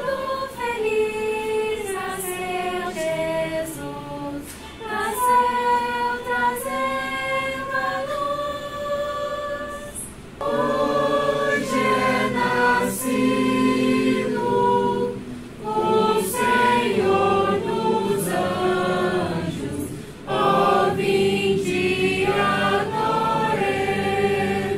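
A small group of young people singing a hymn together, mostly girls' voices, in long held phrases with short breaks about ten and twenty seconds in.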